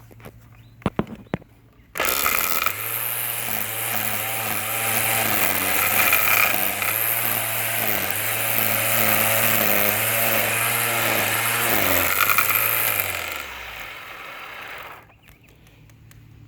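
Black & Decker 20-volt cordless string trimmer switched on about two seconds in. It runs steadily with a slight rattle from the spool head, then spins down near the end. The rattle comes from too much line feeding out and being cut off at the guard, because the spring in the spool cover is missing.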